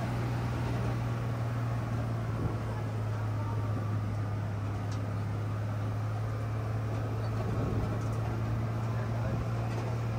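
Steady low engine drone of an open-sided passenger truck climbing a quarry track, heard from the back among the riders, with a broad rushing noise over it.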